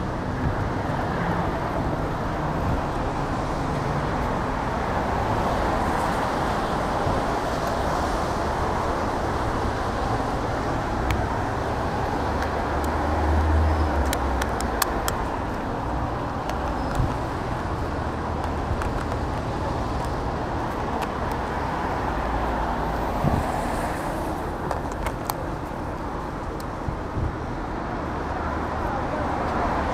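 City street traffic noise: a steady wash of passing cars, with a lower, louder swell of a vehicle going by about 13 seconds in.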